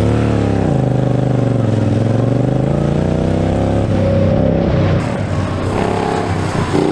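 Racing lawn mower's engine running hard. Its pitch drops about a second in, then climbs again as the throttle is reopened, and the engine note changes about five seconds in.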